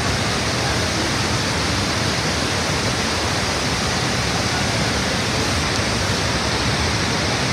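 Niagara's Horseshoe Falls: the steady, unbroken rush of the huge volume of falling water and its mist.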